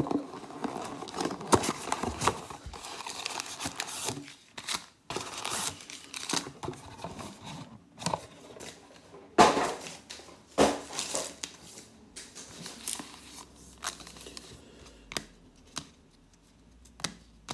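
Cardboard hobby box of 2020 Panini Diamond Kings baseball cards being pulled open and its foil card packs handled: irregular crinkling, tearing and scraping, with the sharpest rips about halfway through and lighter rustling near the end.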